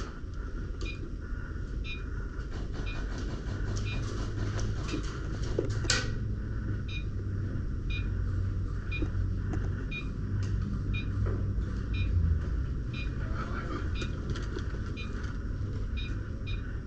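Electronic airsoft game prop beeping: a short high beep about once a second, over a low steady hum, with one sharp click about six seconds in.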